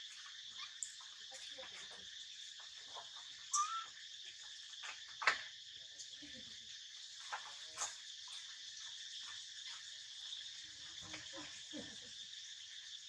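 Steady high-pitched drone of an insect chorus, with scattered soft clicks over it. There is a short squeak about three and a half seconds in, and the loudest sound is a sharp click about five seconds in.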